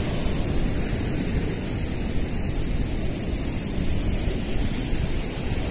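Steady rush of ocean surf breaking on a beach, with wind rumbling on the microphone.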